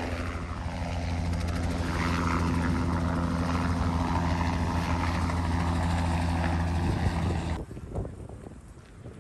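Helicopter lifting off and climbing away close by, its rotor and turbine engine making a loud, steady low drone. It cuts off suddenly about seven and a half seconds in, leaving quieter outdoor noise.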